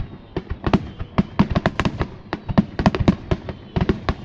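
Aerial fireworks bursting in rapid succession, several sharp bangs a second with no break.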